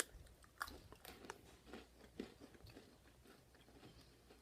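Faint crunching and chewing of a mushroom-shaped chocolate-and-biscuit cookie: a few crisp bites in the first couple of seconds, then softer chewing.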